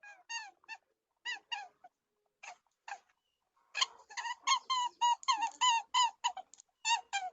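An animal giving short, high, squeaky chirps, each rising and falling in pitch. A few scattered chirps at first, then a quick run of about three or four a second from just past the middle.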